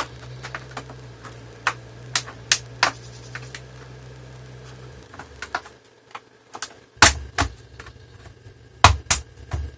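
Sharp plastic clicks and snaps of a Dell Inspiron 17 5767's case clips popping loose as a spudger is pried along the gap between the bottom case and the palm rest. The clicks come singly and irregularly, with the loudest snaps bunched in the last few seconds.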